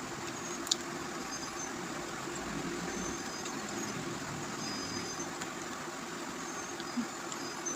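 Steady low hum with an even background noise, and a single sharp click about three-quarters of a second in.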